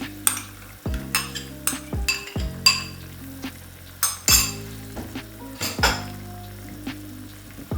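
A metal spoon clinking and scraping against a cooking pot in irregular strokes as beaten yogurt is stirred into a simmering masala gravy.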